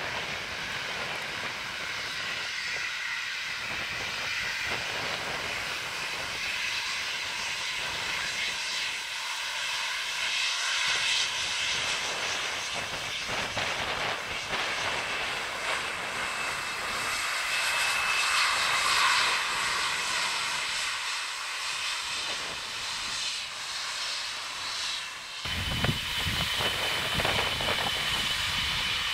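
Turbofan engines of a Boeing 737 taxiing at low power: a steady whistling whine with hiss that swells and eases. About 25 seconds in, the sound cuts to a taxiing Boeing 777, with a deeper rumble under a steady high whine.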